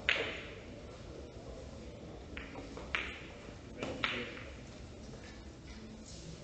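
Billiard balls clicking on a carom table: one sharp click just as it starts, then a few softer clicks about two and a half, three and four seconds in, over a low steady background.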